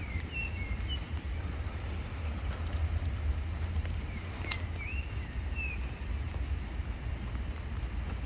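Steady low rumble of wind on the microphone, with short whistled chirps of a bird near the start and again about halfway through, and a single sharp click about four and a half seconds in.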